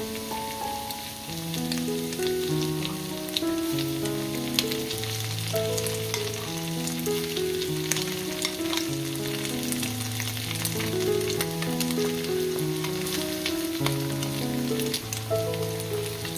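Shredded potato and egg frying in oil in a cast-iron pan, a steady crackling sizzle. Background music with slow, held notes plays over it.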